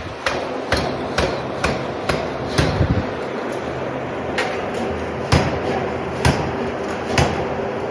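Hammer blows striking metal: a quick run of about two strikes a second, then slower blows about a second apart, over a faint steady hum.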